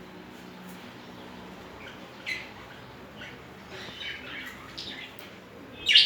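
Budgerigars chirping in short, scattered calls, with a cluster of chirps in the middle and a loud sharp chirp right at the end.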